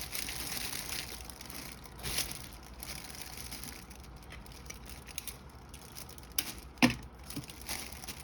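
Gift wrap rustling and crinkling as it is folded over and pressed closed around a gift basket, with scattered soft clicks and one sharp snap about seven seconds in.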